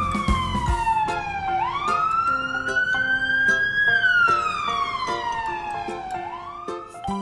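Emergency-vehicle siren in a slow wail, the pitch climbing for about two seconds and falling for about two, twice over, with light background music underneath.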